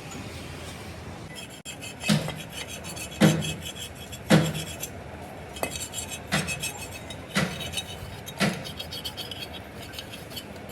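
Metal being struck in a steady series of sharp blows, about one a second, with light metallic clinking between them.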